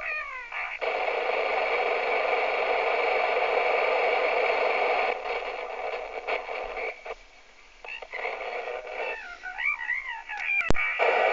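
Transceiver tuned to the 27 MHz CB freeband, its speaker giving a steady rushing hiss as a station keys up without speaking. The hiss cuts off abruptly after about four seconds and returns after a single sharp click near the end.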